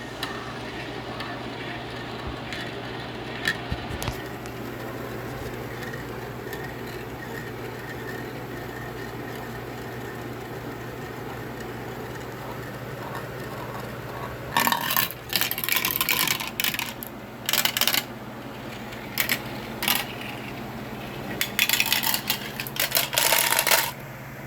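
Steel marble running through a plastic wall-mounted Gecko Run marble run. There are a few faint clicks at first, then rattling clatters in bursts over the last ten seconds as it rolls and drops through the track pieces. A low steady hum sits underneath.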